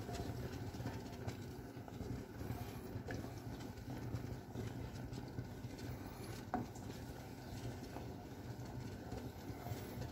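Wooden spoon stirring and scraping through a thick, creamy curry sauce in a frying pan, with small irregular knocks of the spoon against the pan as the sauce simmers; one sharper knock about six and a half seconds in.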